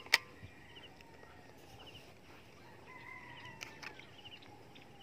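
A sharp crack of an air rifle shot right at the start. Then faint rural background with a distant rooster crowing about three seconds in.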